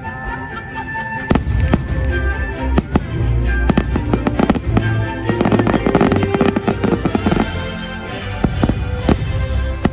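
Fireworks bursting over the show's music on loudspeakers: sharp bangs begin about a second in over a low rumble, with a dense run of crackling bursts in the middle and a few more near the end.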